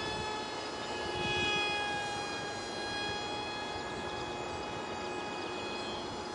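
An ultra-micro RC foam jet's 8mm direct-drive motor and propeller whining steadily in flight, the pitch wavering slightly as it flies.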